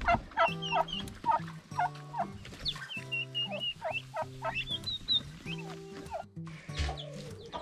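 Young Bourbon Red turkeys calling in the coop: a run of short, high chirping peeps several times a second, over soft background music with held low notes.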